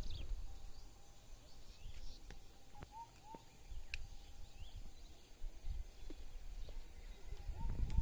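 Small birds calling in short, hooked chirps, a few at a time, over open-air ambience. A low rumble sits under the start and rises again near the end.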